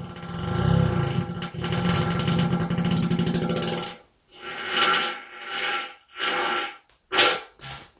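A person farting: one long, buzzy, rasping fart lasting about four seconds, followed by about five shorter, airier bursts.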